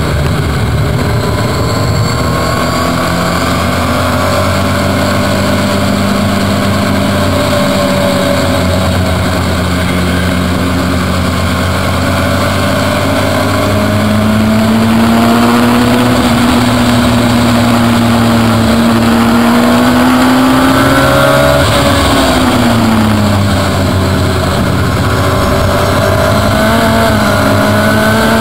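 Car engine at speed on a race track, picked up by a camera mounted low on the car body, with tyre and wind noise. The engine pitch climbs under acceleration, drops sharply about two-thirds through as the driver lifts or shifts down, then climbs again.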